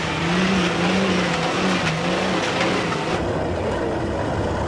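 Mercedes-Benz Unimog trial truck engines working under load off-road. One engine revs in repeated pulses for the first two seconds or so. About three seconds in it gives way abruptly to a lower, steadier engine drone from a second truck.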